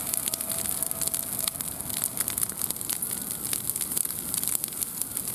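Wood bonfire crackling, with many sharp irregular pops over a steady hiss.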